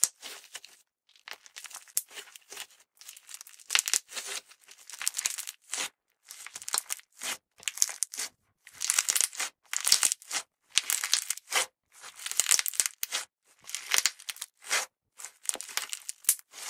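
Soft slime squeezed in the fist and kneaded against a countertop: a run of wet, crackly squishing bursts, about one squeeze a second, with tiny clicks through each one.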